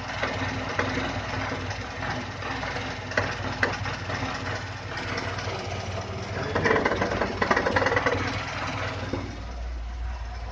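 VAZ-21011 four-cylinder engine running with an unexplained knock, which grows louder for a couple of seconds a little past the middle. It is unclear whether the knock comes from the engine or the transmission; the owners suspect somewhere around the oil sump.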